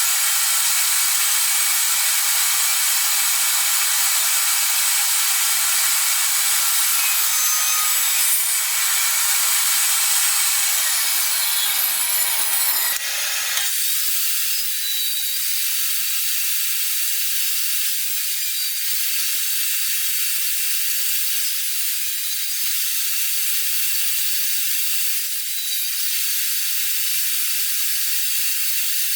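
Steady hissing noise with no clear tones or rhythm, which shifts abruptly to a thinner, higher hiss about halfway through.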